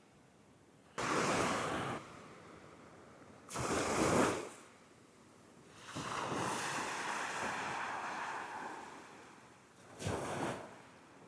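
Surf breaking and washing up the beach in about four separate surges, with some wind on the microphone.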